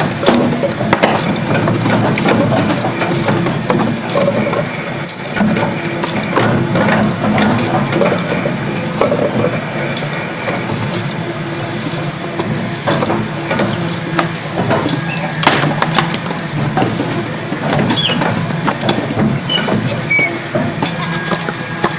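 Industrial twin-shaft shredder running, its toothed cutter discs crunching through a crumbly white block. Many sharp cracks sound over a steady low machine hum.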